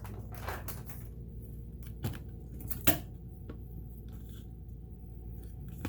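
Small scrapes and clicks from hands working on a sewing machine's metal mechanism during cleaning, with two sharper clicks about two and three seconds in, over a steady low hum.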